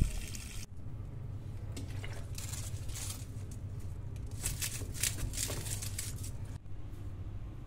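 Low, steady outdoor background rumble, with a scatter of soft crackling taps from about two seconds in until shortly before the end.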